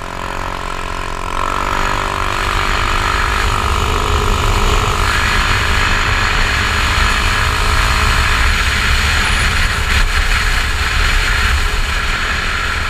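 Heavy wind buffeting on the microphone of a GoPro in its closed housing, riding on a 150cc Icebear Maddog scooter as it gathers speed. The scooter engine's pitch shifts in the first second or so, then a low, loud wind rumble takes over and buries it.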